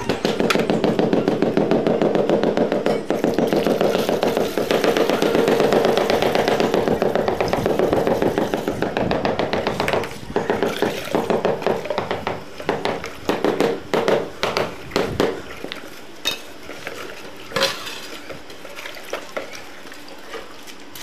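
Rubber mallet tapping a floor tile to bed it into the mortar beneath, in a fast steady patter for about ten seconds. The taps then slow into separate knocks that thin out to a few single ones near the end.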